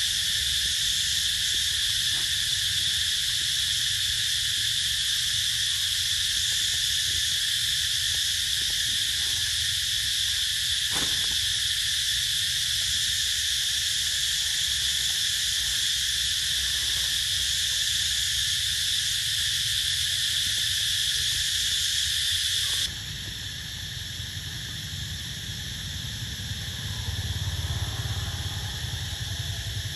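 Steady high-pitched drone of forest insects, unbroken. About three-quarters of the way through it drops suddenly to a quieter, thinner drone, with a low rumble underneath throughout.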